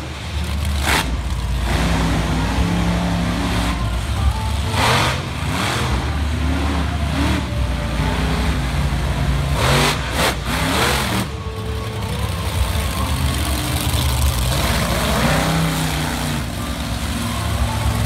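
Monster truck engine revving up and down hard as the truck climbs and jumps dirt mounds and crushed cars, with a few sudden bangs along the way.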